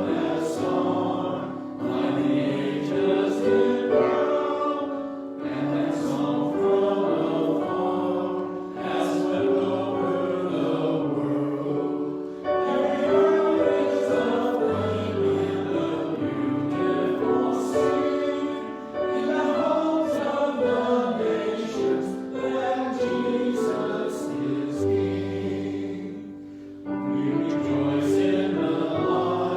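Choir singing sacred music in phrases several seconds long, with short breaks between them.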